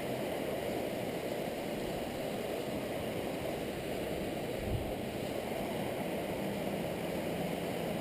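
Steady, muffled rush of river water over a shallow riffle, with a brief low thump near the middle.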